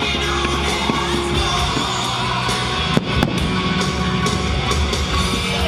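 Loud music from the fireworks show's sound system, with a steady bass line, and two sharp firework bangs about three seconds in.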